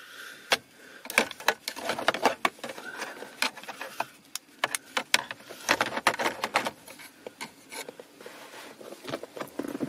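Irregular plastic clicks, taps and scrapes of a BMW E36 centre dashboard air vent being handled and shifted about in its dashboard opening.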